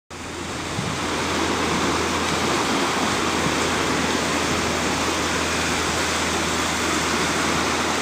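Small waves breaking and washing up a sandy beach: a steady rush of surf, fading in over the first second or so.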